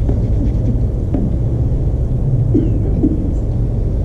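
Steady low rumble, with a couple of faint, brief voice-like sounds about a second in and after two and a half seconds.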